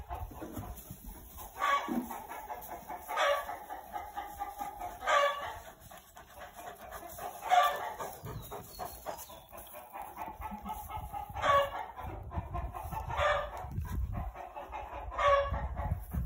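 Barnyard fowl calling over and over, a short pitched call about every two seconds, with softer drawn-out calls in between.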